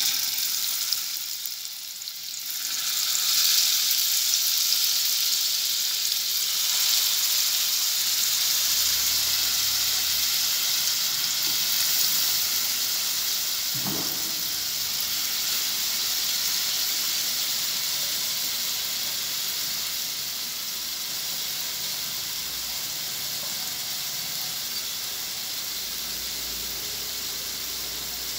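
Masala-marinated chicken pieces sizzling as they are dropped into hot oil in a non-stick tawa, swelling a few seconds in as more pieces go in and then easing slowly as the pan fills. A single short knock about halfway through.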